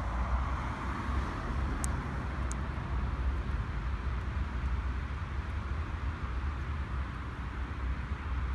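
Steady road traffic noise from a nearby motorway, a continuous hiss over a deep low rumble, with two faint ticks about two seconds in.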